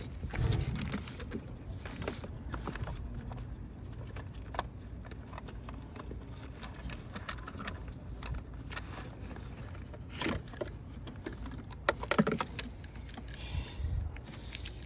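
Handling noise: scattered clicks, knocks and rustles as tools and the phone are moved about, with a few sharper knocks about ten and twelve seconds in.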